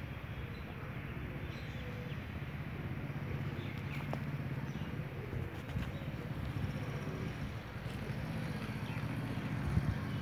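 Outdoor background noise: a steady low rumble with a few faint, short high chirps.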